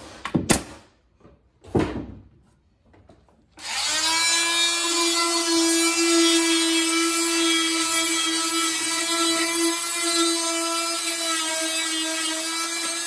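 Two sharp shots from a cordless nail gun driving nails into a wooden stair riser, about a second apart. About three and a half seconds in, an oscillating multi-tool starts and runs with a steady buzz as it trims the shims flush.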